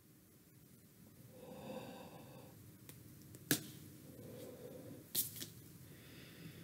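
Faint, muffled excited vocal sounds, a squeal or hum held behind a hand over the mouth, come twice. Two sharp clicks are louder, one in the middle and one near the end.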